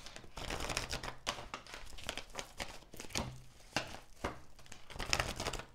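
A deck of cards shuffled by hand: irregular soft papery flicks and taps as the cards slide and knock against each other.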